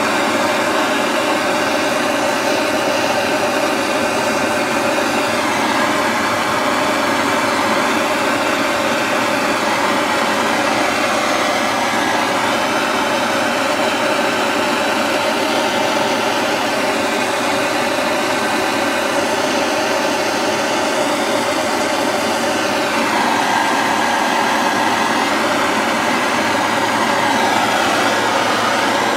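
Handheld blow torch burning steadily, its flame held on a 3D printer hot end to melt off hardened PLA; the sound shifts slightly near the end.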